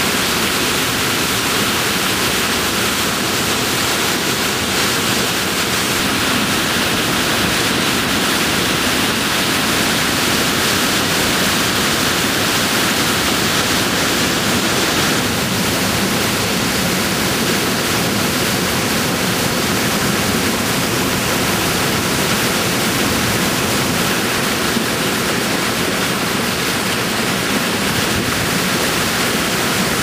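Loud, steady rush of a large waterfall plunging into a churning pool, with a slight shift in tone about halfway through.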